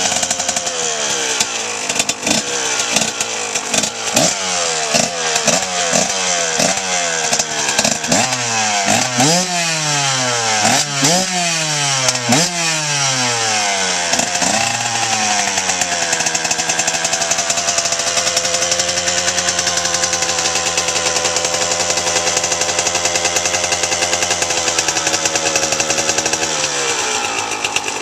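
1999 KTM 125 SX two-stroke single-cylinder engine, freshly rebuilt top and bottom end, being blipped on the throttle: it revs up and drops back about a dozen times in quick succession, then settles to a steady idle for the second half, with a brief dip in pitch near the end.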